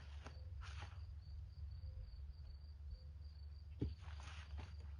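Insects, crickets by the sound, chirping steadily in a high, even pulsing trill. A couple of faint rustles and one soft knock just before four seconds sit on top.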